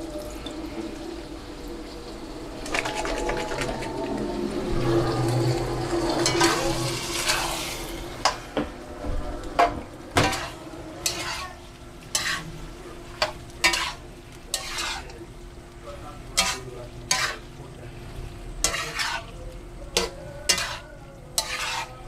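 A creamy vegetable sauce simmering with a sizzle in a pan while it is stirred. After a few seconds of sizzling, a utensil knocks and scrapes against the pan about once or twice a second.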